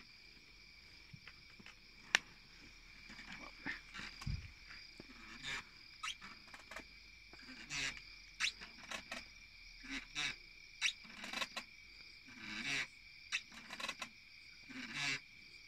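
Steady high-pitched chorus of night insects, with scattered short clicks and rustles of movement close by.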